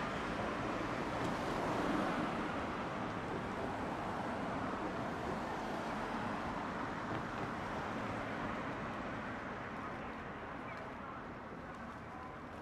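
Streetcar running along its street track and moving away, a steady rumble that fades gradually over the last few seconds.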